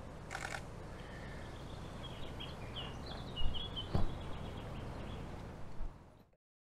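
Small birds chirping and singing over a low outdoor rumble, with a brief rasping call near the start and two sharp low thumps in the middle; all sound cuts off abruptly about six seconds in.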